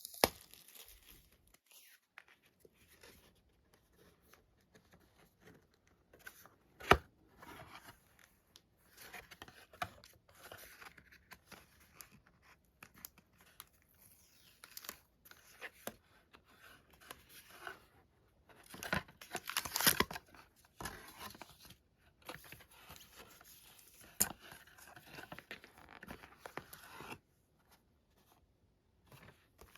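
Packaging being torn and crinkled off new manga volumes: scattered rustling with a few sharp clicks, and a longer, louder tearing about two-thirds of the way through. The handling stops a few seconds before the end.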